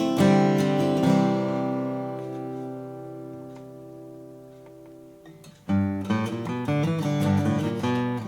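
Taylor PS14ce grand auditorium acoustic guitar: chords strummed at the start and again about a second in, the last one left ringing and slowly dying away. After about five and a half seconds, a busy run of picked and strummed notes starts up again.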